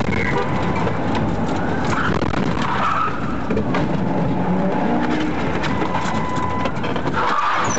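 Police patrol car being driven fast: steady engine and tyre noise.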